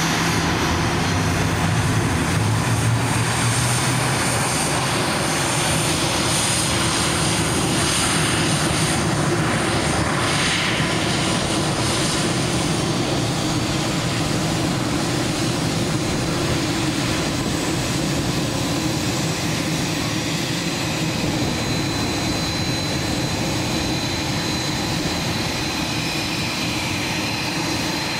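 Business jet's turbofan engines running: a loud, steady jet rush with a high whine, easing slightly in level over time. A thin high whistle comes in about two-thirds of the way through.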